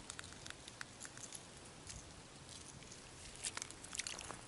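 Faint scattered light clicks and taps over a low outdoor hiss, a few slightly louder ones near the end.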